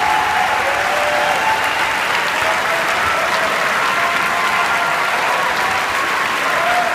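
A large audience applauding, steady and unbroken.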